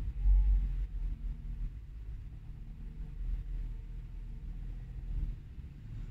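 Low, steady rumble of a car's engine and tyres heard from inside the cabin while creeping along in slow traffic, loudest in the first second.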